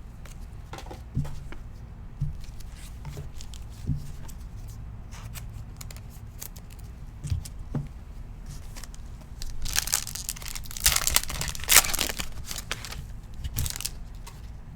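Prizm football card pack wrapper being torn open and crinkled, loudest for a couple of seconds about ten seconds in. Before that, light taps and rustles of cards being handled.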